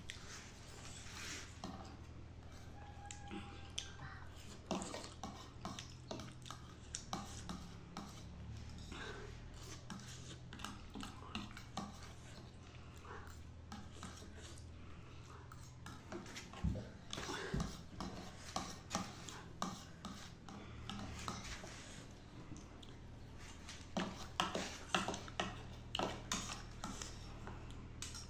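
Metal fork scraping and tapping against a disposable plate while gathering noodles, with slurping and chewing in between. A run of quicker, louder fork clicks comes near the end.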